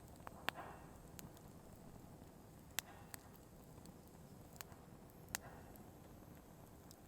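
Firewood burning: scattered sharp crackles and pops, a few louder snaps among smaller ticks, over a soft, steady hiss of the flames.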